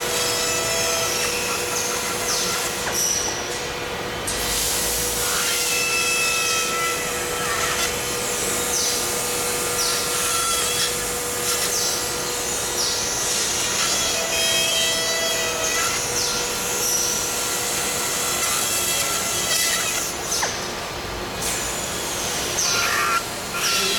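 Factory-floor machinery noise: a steady hiss and hum, with short high squeals coming and going throughout.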